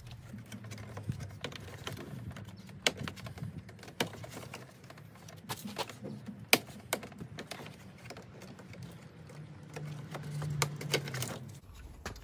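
Light plastic clicks and taps from a BMW E91's plastic kidney grille being worked out of the bumper, its clip tabs pushed in and popping free. The clicks are scattered, with a few sharper ones among them.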